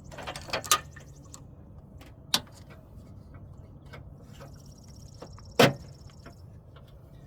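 Hand work on a car's battery hold-down bracket in the engine bay: a few sharp knocks and clinks of metal parts and tools, a cluster of them in the first second, one about two seconds in, and the loudest about five and a half seconds in.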